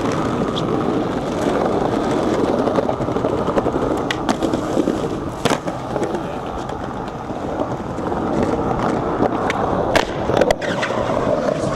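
Skateboard wheels rolling over pavement in a steady rumble, broken by several sharp clacks of the board being popped and landed during flatground tricks, with a cluster of them near the end.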